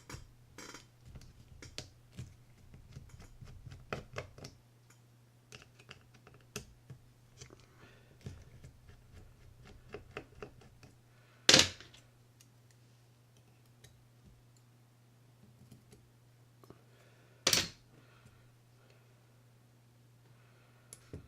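Small clicks and scrapes of a screwdriver and metal parts as two screws are backed out of a Shimano Citica 200D baitcasting reel to free its drive shaft. Two much louder sharp clicks stand out in the second half, about six seconds apart, over a steady low hum.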